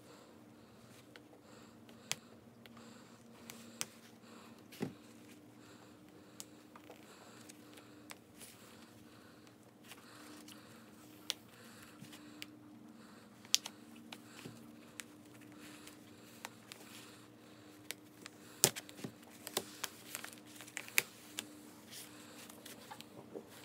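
Weeding cut craft vinyl by hand with a hook tool: faint crinkling and scattered light clicks and ticks as the scrap vinyl is picked up and peeled away, busier in the last few seconds. A faint steady hum runs underneath.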